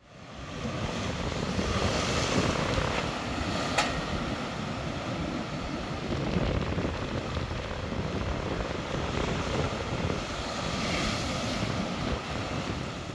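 Storm waves surging and washing across a concrete harbour landing stage, with strong wind buffeting the microphone; the wash swells twice and there is one sharp click about four seconds in. It fades in from silence at the start.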